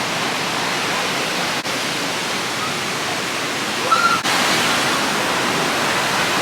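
Steady rushing of a waterfall, a constant loud hiss of falling water, cut by two very brief dropouts.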